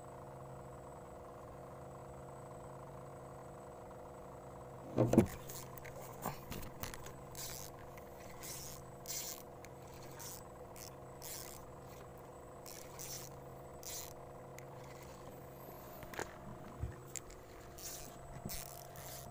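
Handling noise of a fishing rod and spinning reel in a wooden boat: a loud knock about five seconds in, then scattered sharp clicks and scrapes. A steady motor hum runs underneath.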